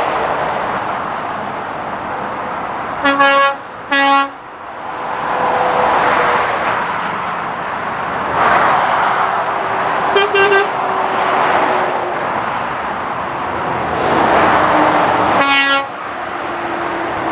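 Dual-carriageway traffic, mostly lorries, rushing past in waves. Short horn toots ring out over it: two quick toots about three seconds in, a stuttered toot around ten seconds, and one more near the end.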